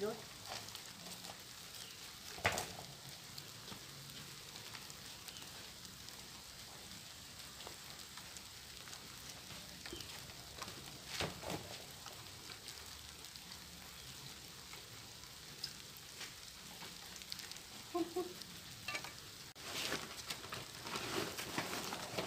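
A steady crackling hiss with scattered rustles and knocks from a plastic sack being handled; a short pitched chirp sounds a few seconds before the end.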